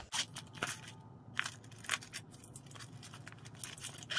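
A small plastic packet crinkling and crackling as it is handled and opened by hand, in a run of irregular sharp crackles.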